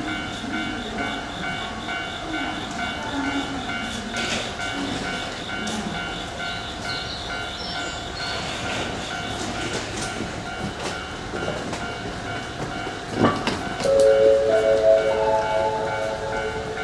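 Horn of an approaching electric locomotive, the EF64 hauling the train: a chord of several steady notes held for about three seconds near the end, just after a sharp knock.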